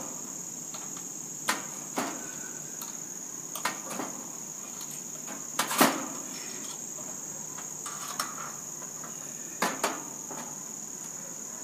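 Metal tool clinking against the condenser's brass service valves as they are opened all the way: a handful of short sharp knocks, the loudest about six seconds in. Under it runs a steady high-pitched chirring of insects.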